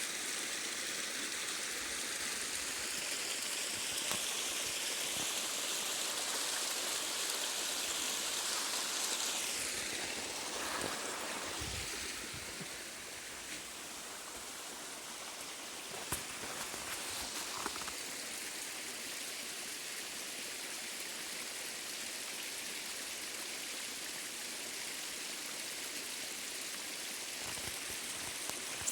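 A small spring-fed stream running over a little cascade: a steady rush of water that eases slightly about a third of the way in.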